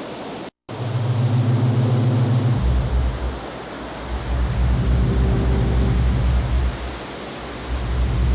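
Surf washing over shoreline rocks under a deep, steady low drone that drops lower about two and a half seconds in, with a brief total cut-out about half a second in.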